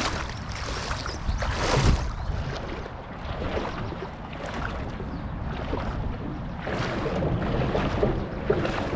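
Wind buffeting the microphone over running creek water, with a few louder rushes of noise about two seconds in and again near seven seconds.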